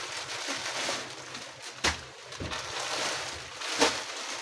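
Clear plastic packaging crinkling and rustling as a packed shirt piece is picked up and handled, with sharper crackles about two seconds in and again near the end.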